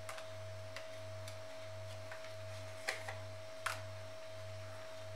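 Tarot cards being shifted and picked up on a table: four short, light clicks and taps of card on card. Under them runs a steady high-pitched tone and a low hum that pulses about twice a second.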